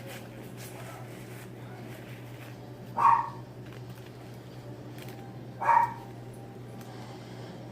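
A dog barking twice, single short barks about two and a half seconds apart.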